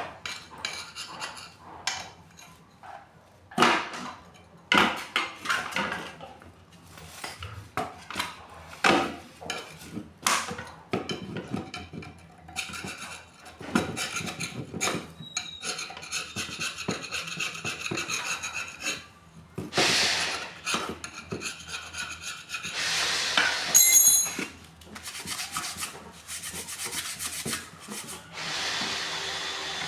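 Irregular hand scraping and rubbing strokes on water pump parts, cleaning old gasket residue and dirt off the surfaces. Two longer hissing scrapes come about three quarters of the way through and near the end.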